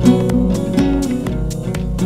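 Music: an instrumental passage of a song, strummed guitar with a steady beat and no singing.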